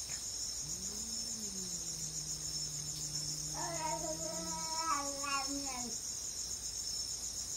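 Two tomcats yowling at each other in a standoff. One holds a long, low, drawn-out 'uuu' growl starting about half a second in. A second, higher and wavering yowl joins over it about three and a half seconds in and stops near the six-second mark, with crickets chirping behind.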